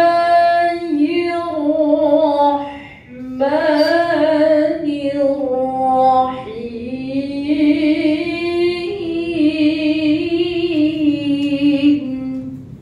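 A woman reciting the Qur'an in melodic tilawah style into a microphone. She sings three long, ornamented phrases, with short breaths about three seconds in and about six and a half seconds in; the last phrase ends just before the close.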